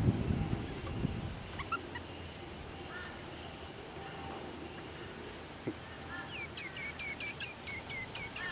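Harsh begging calls of a baby butcherbird fading out in the first second, then faint scattered chirps. Near the end comes a quick run of about ten short, falling bird chirps, over a steady high-pitched hiss.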